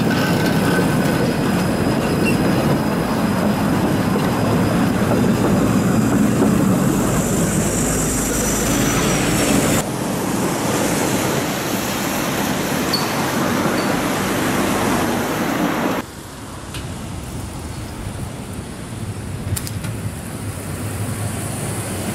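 Trams running on street track: an articulated tram rolls past close by, its wheels and running gear loud on the rails. Partway through the level drops suddenly, then a Konstal 105N tram approaches and grows steadily louder as it nears.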